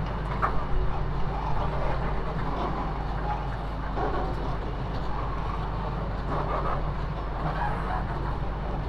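Loaded bulk cement tank wagons of a freight train rolling past on the rails: a steady rumble of steel wheels, with a few sharp clicks and knocks about half a second to a second and a half in.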